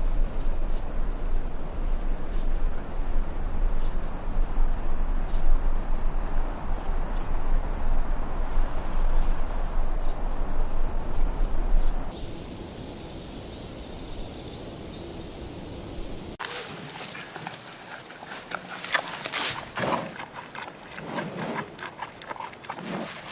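Outdoor field ambience: a low rumble with a steady high insect trill over it, which drops away about halfway through. In the last third, a run of crackles and rustles as a hamadryas baboon handles and eats leafy twigs.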